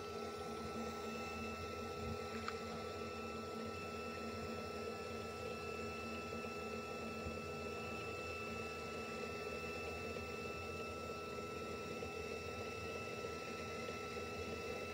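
4040 Pro CNC's Z-axis stepper motor whining steadily as it lowers the trim-router spindle slowly onto a touch probe to zero the Z axis. The steady whine stops near the end as the probe is touched.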